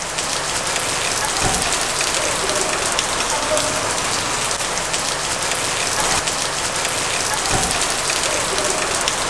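Steady heavy rain falling and pattering on surfaces.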